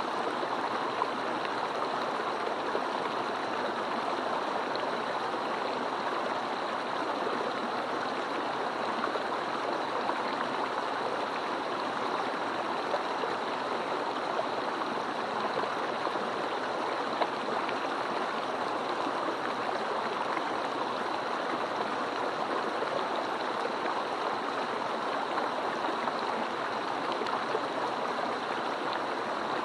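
Mountain stream rushing and gurgling over rocks, a steady, even flow of water.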